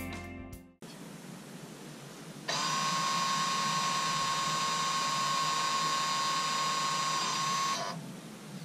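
Electronic parking brake motor on a rear brake caliper, running with a steady whine for about five seconds from about two and a half seconds in, then stopping. The motor is winding the caliper piston back to open the parking brake for a brake pad change.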